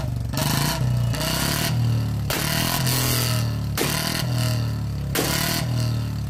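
Royal Enfield Bullet single-cylinder motorcycle engine running, revved in short bursts several times, with sharp cracks from the exhaust: the firecracker-like bangs of a Bullet rigged to backfire.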